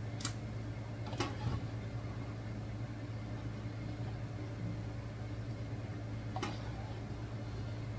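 Steady low hum of a kitchen range hood fan, with three brief light clinks of cookware as a pot of boiled pineapple is tipped into a canning pot.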